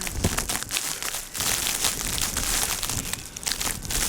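Footsteps crunching through deep snow, an irregular run of crunches and rustles.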